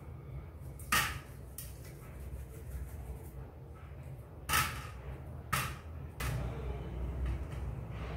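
Three sharp taps, one about a second in and two more close together around the middle, from hands rolling stiff puri dough into balls and setting them down in a steel bowl, over a low steady hum.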